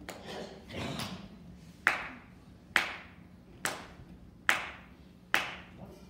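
Bandleader counting off the tempo with sharp, evenly spaced claps, five of them a little under a second apart, starting about two seconds in, setting the band's tempo before it plays.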